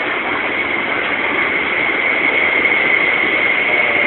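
East Rail Line SP1900 electric multiple unit passing close by: a steady rush of running noise from the cars. A high, steady whine comes in about a second and a half in and grows stronger.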